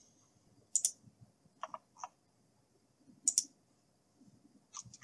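Computer mouse and keyboard clicks: a quick double click about a second in, a few softer clicks around two seconds, another double click past three seconds, and small clicks near the end.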